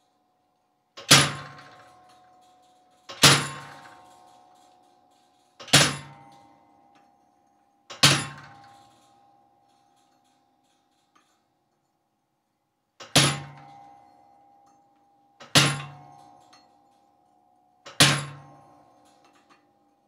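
Seven metal-on-metal blows with a gap in the middle, each ringing briefly and dying away: a treadle hammer striking a handled chisel held on cold steel, laying out decorative chisel lines on a door-bolt hasp.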